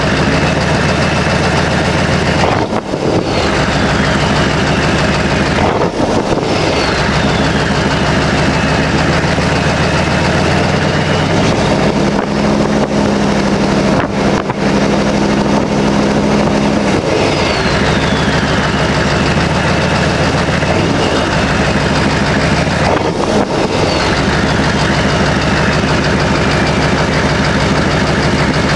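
GM 6.5-litre turbo diesel V8 running, its turbocharger whistle sounding several times as a high whine that glides down in pitch over a few seconds, as the turbo spools down after the engine is revved.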